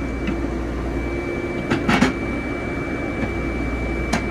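Excavator engine running steadily, heard from inside the cab as a low hum with a thin steady high tone over it. A few sharp clicks and knocks come about two seconds in and again near the end.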